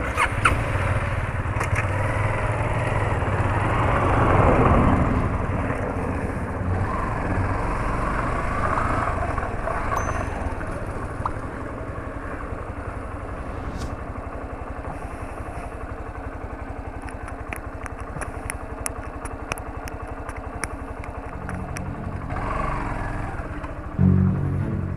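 Small-displacement motorcycle engine running while riding, with the tyres rumbling over cobblestone paving and wind noise. The engine grows louder about a second before the end.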